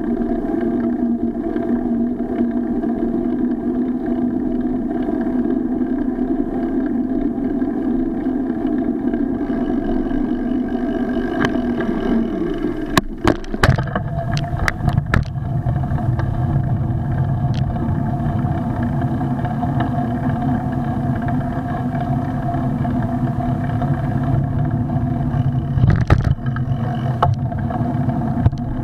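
Riding noise picked up by a bicycle-mounted action camera: a steady drone with a hum in it. A cluster of sharp knocks comes about 13 seconds in as the camera mount tips back, the hum drops lower after them, and a few more knocks come near 26 seconds.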